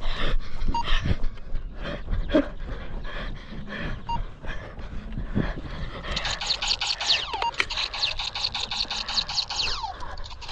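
Heavy panting breaths while running. From about six seconds in, a toy laser tag gun fires: a rapid run of electronic pulses for about four seconds, with a few falling 'pew' tones.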